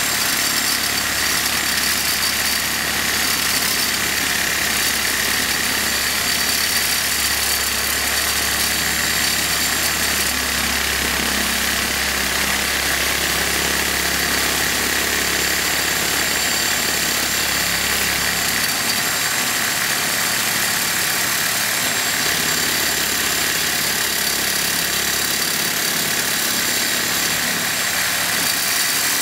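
Electric saw running its old, dull bimetal blade through the steel shell of an air-conditioner compressor, cutting slowly: a steady, loud metal-cutting noise with high ringing tones. About two-thirds of the way in, the low hum underneath drops away.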